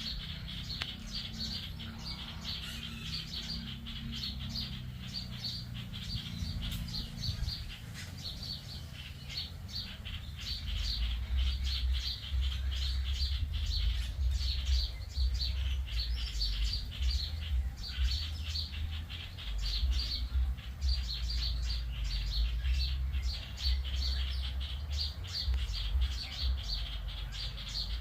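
Many small birds chirping in a dense, continuous chorus of short, rapid high notes. A low rumble comes in about a third of the way through and stays under the chirping.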